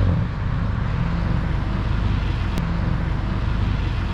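A Honda Civic's engine running steadily at low revs with a low, even exhaust note, and a single short click about two and a half seconds in.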